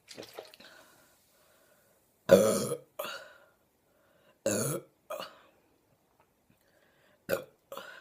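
A woman burping loudly twice, about two and a half seconds in and again about four and a half seconds in. Each burp is followed by a short, softer sound, and two brief sounds come near the end.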